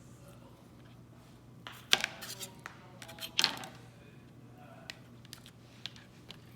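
Utility knife slicing through strawberries and striking a flexible plastic cutting mat: a few sharp clicks and taps, the loudest about two seconds and three and a half seconds in.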